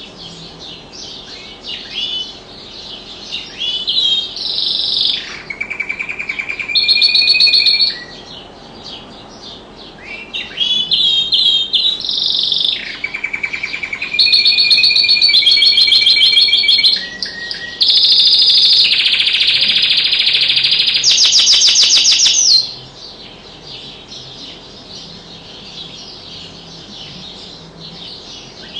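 Domestic canary singing two long song phrases of rapid repeated notes and rolling trills, the second louder and ending in a long, very fast trill. It stops singing about three-quarters of the way through.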